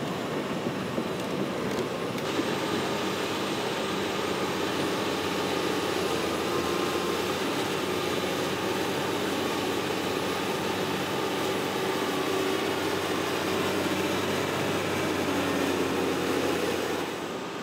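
Caterpillar tracked hydraulic excavator's diesel engine running steadily under load as it digs and dumps soil.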